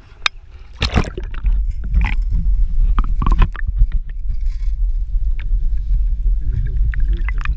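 Water splashing and gurgling around a camera as it goes under the lake surface: a splash about a second in, then a steady low underwater rumble with bubbling and knocks.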